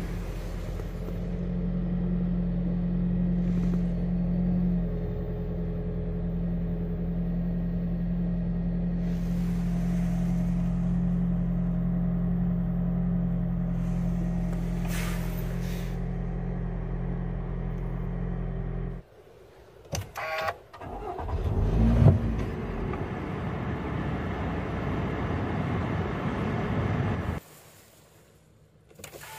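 Toyota minivan engine idling with a steady low hum, heard from inside the cabin. After a break with a few clicks, another engine is cranked and catches with a brief rev flare about three-quarters of the way through, then settles to a steady idle before cutting off.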